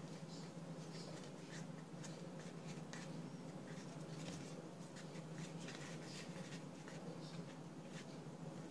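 Faint soft rustles and light taps of fingers folding and pressing the edge of pie dough on a floured countertop, over a low steady hum.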